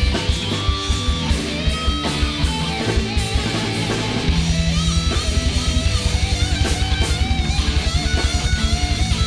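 Heavy metal studio recording: distorted electric guitars, bass and drums. About four seconds in, the drums change to a rapid, even kick-drum beat under a wavering lead melody.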